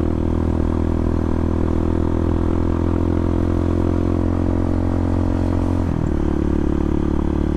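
A Bashan 250 dirt bike's engine runs steadily under way, with a brief change in its note about six seconds in.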